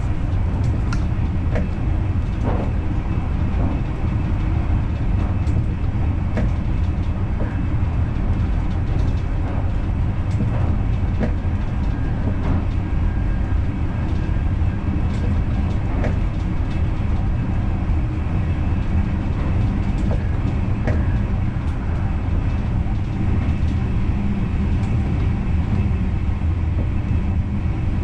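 NS Intercity train running, heard from inside the driver's cab: a steady low rumble of wheels on rail, with scattered clicks throughout.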